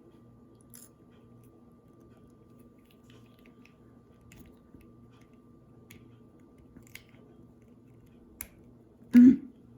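Small plastic clicks and taps of a Playmobil figure's hair piece being worked onto its head, a few scattered ticks, then one much louder short thump or huff near the end.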